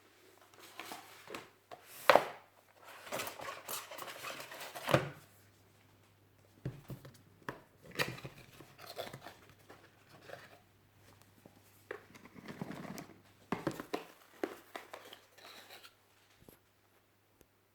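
Packaging being handled and opened: irregular rustling, crinkling and tearing in short spells with pauses. There are sharp clicks among them, the loudest about two seconds in and just before five seconds.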